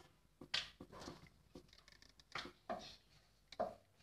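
A spatula pressing a thin roti on a nonstick tawa: about five faint, short scrapes and taps, spread out with quiet between them.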